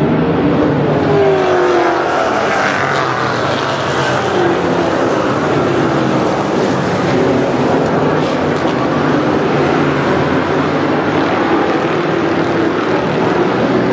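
A field of Thunder Car stock cars racing in a pack, many engines running hard at once. Their pitches slide up and down, overlapping as cars pass close by.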